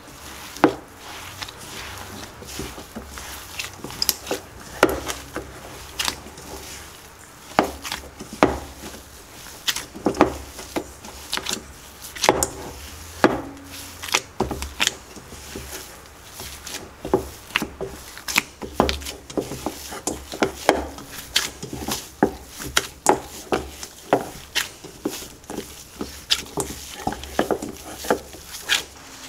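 A gloved hand kneading coconut-flour dough in a stainless steel mixing bowl: irregular knocks, taps and rubbing as the dough is pressed and the bowl shifts about.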